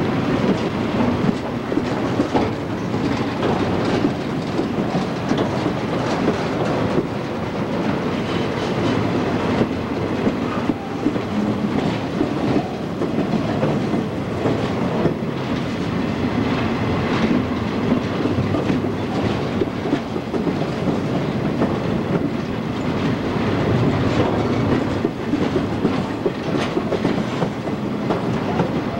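Double-stack container well cars rolling past on steel wheels, a steady rumble with irregular clicks and clacks over the rail joints.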